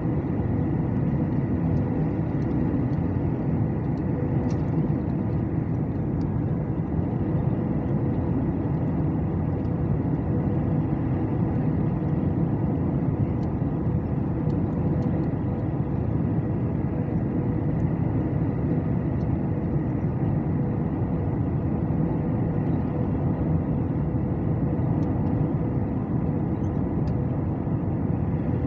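Steady engine and airflow noise heard inside the cabin of an Airbus A319 on final approach: an even low drone with a constant hum running through it.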